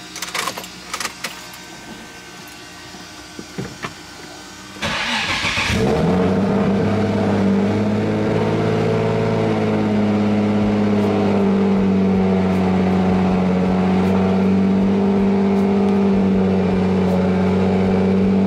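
A few light clicks, then about five seconds in a turbocharged Nissan 350Z's 3.5-litre V6 cranks briefly, catches and settles into a steady idle. This is the engine's first start after an oil change.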